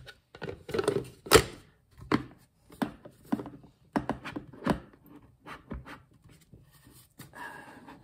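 Plastic parts of a cat water fountain being handled and fitted together: the lid and pump tower knocking and clicking into the reservoir, a series of irregular clacks with the loudest about a second in.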